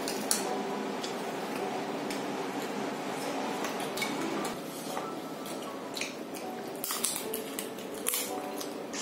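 Close-up eating sounds: wet chewing and mouth smacks of curry and rice eaten by hand, with scattered clicks of a serving spoon and fingers on plates and the curry bowl.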